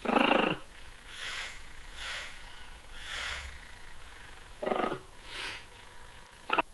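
Domestic cat purring in separate bursts: a loud, pulsing purr for about half a second at the start and again just before 5 s, with softer breathy puffs between and a short sharp burst near the end.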